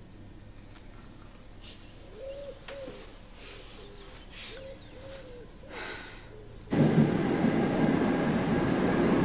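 A quiet stretch with a few faint cooing calls, then about two-thirds of the way in a sudden cut to the loud, steady running noise of a train carriage heard from inside.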